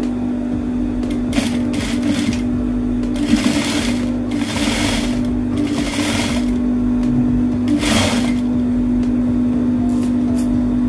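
Industrial sewing machine running and stitching a zipper onto a blouse: a steady motor hum with a few louder stretches of stitching.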